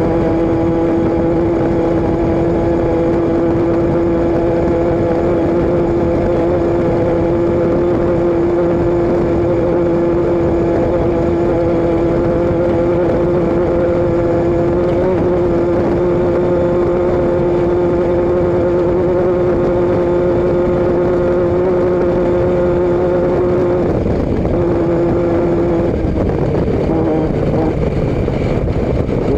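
A motor vehicle running at a steady speed: a constant droning tone over engine and road rumble. About 24 seconds in the drone dips and breaks up, and it wavers again near the end, as the speed changes.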